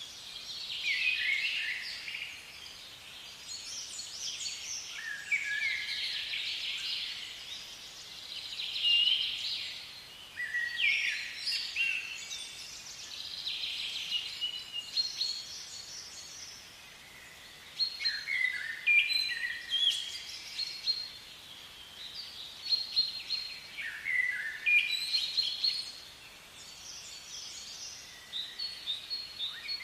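Small songbirds chirping and singing in quick, repeated clusters of short high notes and trills, over a faint steady outdoor background noise.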